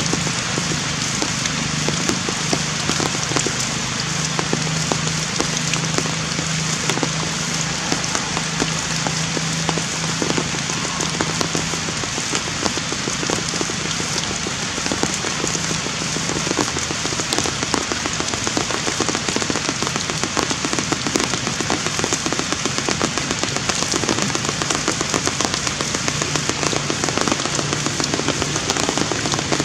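Steady heavy rain: a dense, even patter of drops hitting surfaces.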